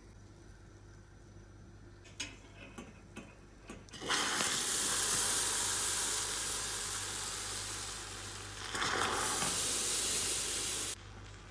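Hot caramel in a stainless steel saucepan hissing and bubbling hard as milk is added, starting suddenly about four seconds in after a few light clicks. The sizzle eases for a moment, swells again, then cuts off abruptly near the end.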